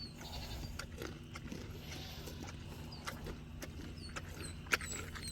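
Goats and a donkey crunching on carrots: scattered crisp, sharp crunches over a low steady hum, with faint bird chirps.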